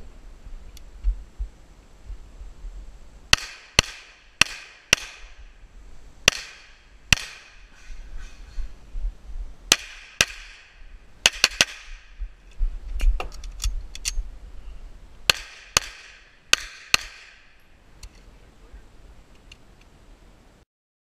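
Semi-automatic pistol shots fired mostly in quick pairs, around sixteen sharp cracks in all, each with a brief echoing tail, with a few lighter clicks between the strings.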